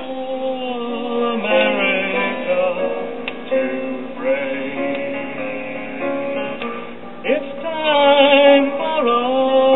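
A vinyl record of music with singing, played through the MPC Systems classroom record player's own amplifier and speaker, thin and not very loud. The owner puts the low volume down to the small ceramic cartridge's output being too weak for an amplifier designed for an Astatic 89T cartridge.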